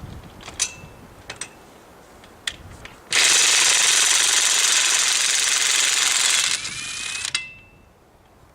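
Ridgid 18V brushless half-inch impact wrench hammering for about three and a half seconds, then running on more softly and stopping with a click. A few light metal clinks come before it.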